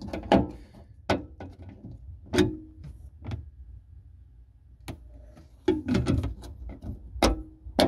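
Scattered short knocks and clicks, about eight to ten in all, over a low steady hum.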